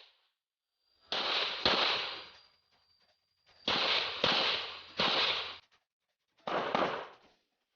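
Smith & Wesson SW1911 Pro Series 9mm pistol firing about seven shots in quick pairs, each echoing off the range.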